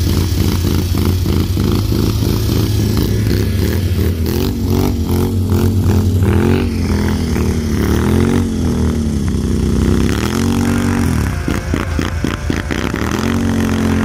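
ATV engine revving in repeated surges, its pitch rising and falling with each burst of throttle as the quad ploughs through deep snow.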